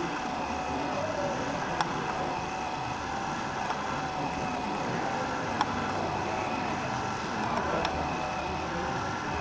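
Small electric drive of a 1:32 RC Krone ZX silage wagon's chain scraper floor running steadily as it pushes chopped maize out of the open rear, with a steady hum and a few small clicks.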